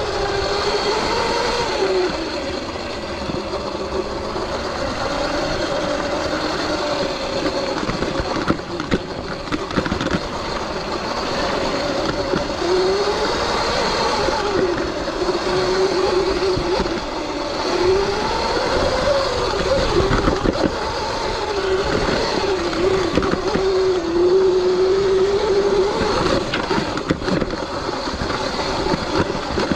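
Sur-Ron X electric dirt bike riding rough single track: the electric motor's whine rises and falls with throttle and speed over steady rushing trail noise, with occasional knocks and rattles as the bike hits bumps.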